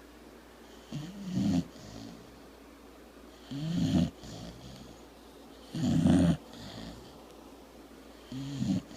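Sleeping dog snoring: four loud snores about two and a half seconds apart, each swelling and then cutting off sharply, with a softer breath after each.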